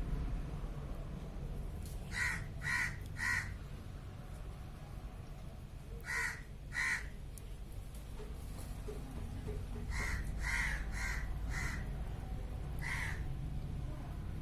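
A bird calling outside: ten short calls in groups of three, two, four and then one, over a steady low rumble.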